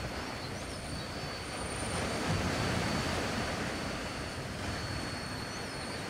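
Outdoor jungle ambience: a steady low rushing noise that swells about two seconds in, with a thin, steady high insect whine above it and a few short bird chirps.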